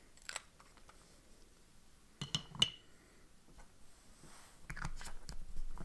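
Small handling sounds of a pen and paper on a desk: a few light clicks, two sharp clicks with a brief ring a little over two seconds in, then rustling near the end.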